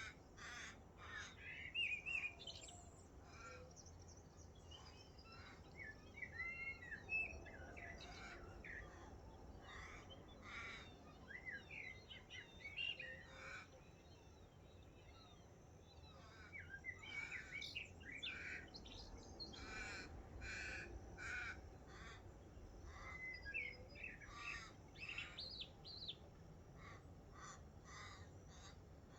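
Morning birdsong from several birds: a steady stream of short calls, chirps and quick whistled notes, some harsh and repeated. A faint low rumble of wind or distant noise sits underneath.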